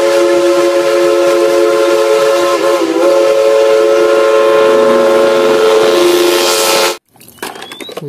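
Steam locomotive's chime whistle blowing one long blast of several steady tones over a hiss, with a brief wobble in pitch around the middle, cutting off suddenly about seven seconds in.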